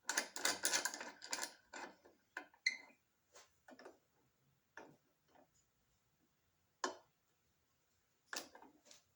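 Small metal parts of a letter opener kit clicking and tapping as they are handled and fitted into the turned wooden handle: a quick run of clicks at first, then scattered single clicks, with a sharper one late on.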